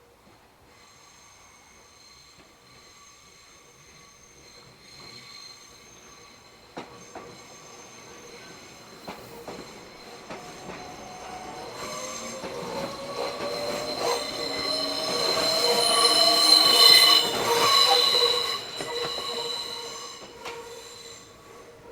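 Meitetsu train wheels squealing through the tight Inuyama curve on the Hiromi Line: several high steady squeal tones build as the train approaches, with a few sharp clicks along the way. The squeal is loudest about three-quarters of the way through, then fades as the train moves off.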